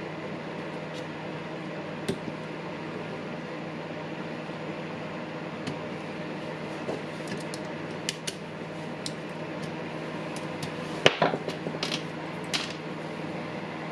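Scattered light clicks and taps of small parts being handled and fitted into a Makita cordless impact driver, as its carbon brushes go in, with a loudest cluster of clicks near the end. A steady hum runs underneath.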